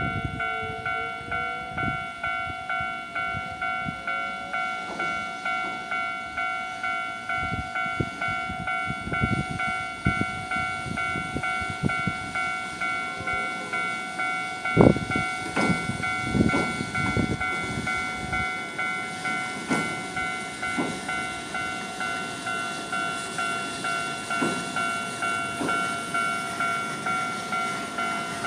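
Japanese level-crossing alarm ringing a steady, evenly repeated electronic ding, roughly one and a half strokes a second, as a Hiroshima Electric Railway tram passes over the crossing. The tram's wheels knock over the rail joints in a quick run of clacks about halfway through.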